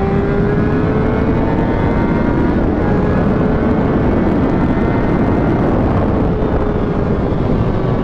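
Honda CBR600RR's inline-four engine running at freeway speed under loud wind and road rush on the rider's microphone. Its pitch rises slightly near the start, then eases gently down as the bike cruises.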